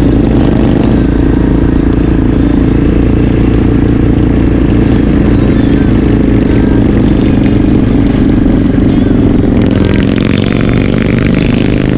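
Motorcycle running steadily at road speed, engine and wind noise continuous, with background music over it.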